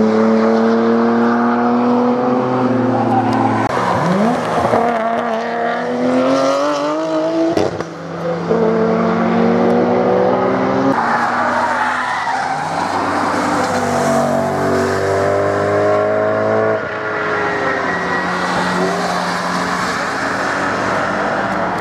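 Sports cars passing one after another at speed. The engines rev hard, and the pitch climbs and drops through gear changes and throttle lifts. The sound switches abruptly several times as one car gives way to the next.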